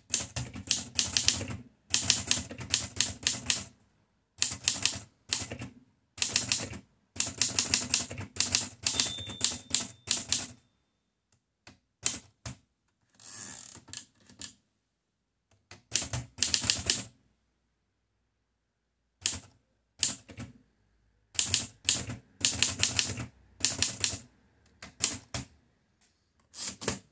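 A 1943 Erika 5Tab portable typewriter being typed on, in quick runs of sharp key strikes broken by short pauses. The carriage is returned by its lever partway through.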